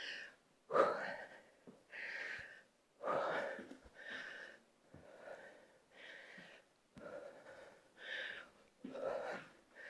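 A woman breathing hard from exertion during a workout: short, faint breaths in a steady rhythm of about one a second. A few faint soft thuds come in among the breaths.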